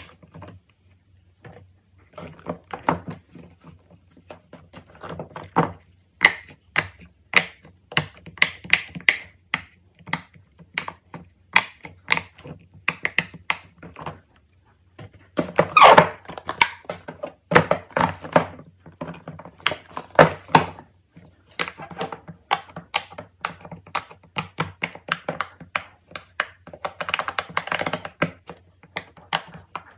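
Fidget toys being handled: a dense, irregular run of quick clicks, taps and pops, loudest in a cluster about halfway through.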